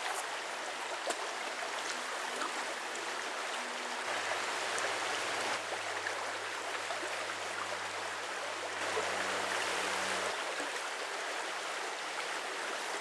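Small brook running over rocks: a steady wash of flowing water.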